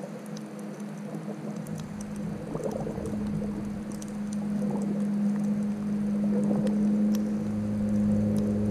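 Boat engine heard underwater: a steady low hum that grows louder, with a deeper hum joining near the end, over faint scattered clicks.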